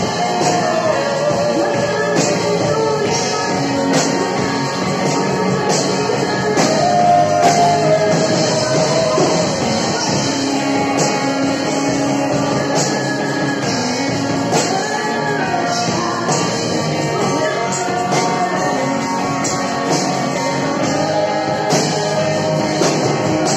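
Live praise band playing a rock-style worship song: a woman and a man sing into microphones over electric guitar, keyboard and drums.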